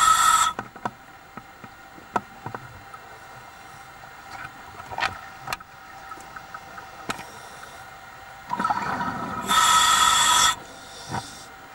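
Scuba diver breathing through a regulator underwater: a loud hiss of inhalation at the start and again near the end, with a rush of exhaled bubbles just before the second, and faint scattered clicks in between.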